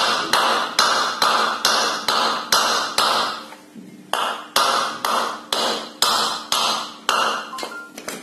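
A wooden mallet taps a new ball bearing into its seat in a ceiling fan's metal end cover. The blows come at about two a second, each with a brief ring after it, with one pause of about a second near the middle.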